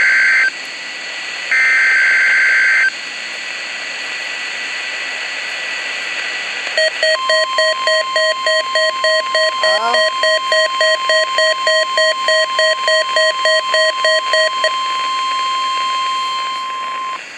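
NOAA Weather Radio test alert over a Midland WR-100 weather radio's speaker: two harsh, two-pitched bursts of the digital SAME header data, then about seven seconds in the steady single-pitched warning alarm tone, held for about ten seconds. For most of that tone the radio's own alert beep pulses along with it about three times a second, all over a constant static hiss.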